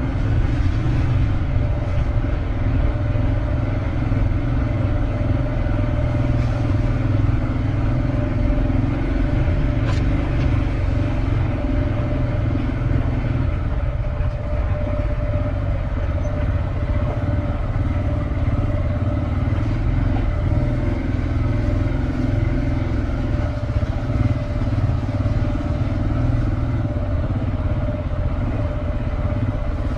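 Motorcycle engine running steadily while riding, with a constant low rumble and a steady drone that hold at one speed throughout.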